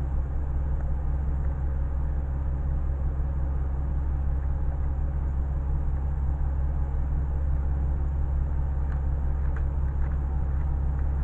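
Steady low engine drone, like a motor idling, with a few faint clicks near the end.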